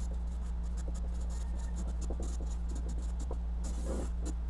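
Marker pen writing on paper taped to a wall: quick short scratchy strokes as letters are formed, with a longer stroke near the end. A steady low hum runs underneath.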